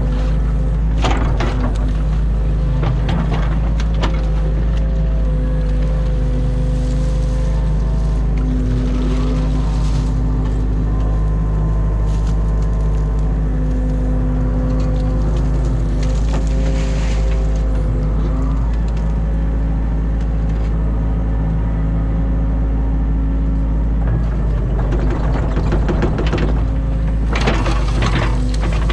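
New Holland Kobelco E50.2 mini excavator's diesel engine running steadily under load, with a hydraulic whine that shifts in pitch as the boom and bucket move. A few knocks and scrapes from the bucket digging in the ditch come near the start and again near the end.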